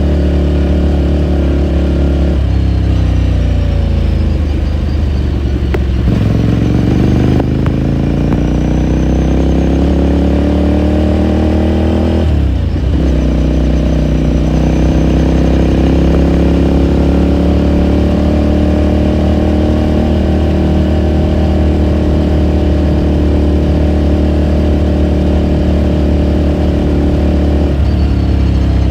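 A 2018 Ducati Scrambler Sixty2's air-cooled L-twin engine on the move. Its pitch drops a couple of seconds in, then climbs steadily for several seconds. It breaks briefly for a gear change near the middle, holds a steady cruising pitch, and falls again near the end.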